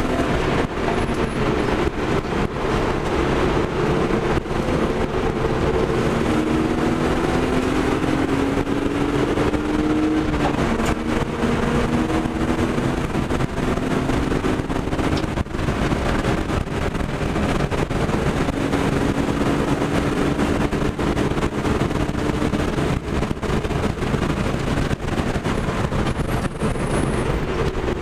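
BMW 325i's straight-six engine under hard acceleration, heard from inside the cabin: its note climbs steadily in pitch several times and falls back lower each time, over a steady rush of wind and road noise.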